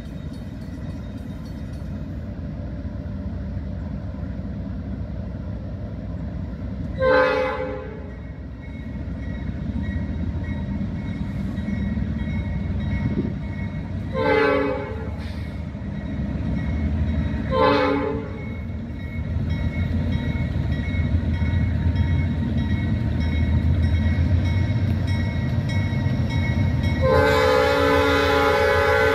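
Norfolk Southern freight train's lead diesel locomotive blowing its air horn in the grade-crossing signal: two blasts of about a second each, a shorter third, then a long blast near the end. Under the horn, the diesel engines and rolling cars rumble steadily and grow louder as the train approaches.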